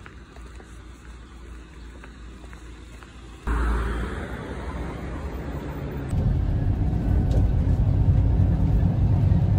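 Outdoor street ambience, quiet at first, that jumps to louder traffic noise about a third of the way in. About two-thirds in it gives way to the loud, steady low rumble of a city bus heard from a seat inside.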